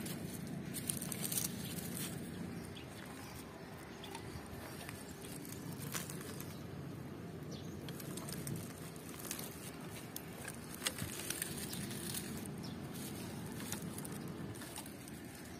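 Leaves, vines and dry grass rustling and crackling as they are handled and moved, with scattered small clicks.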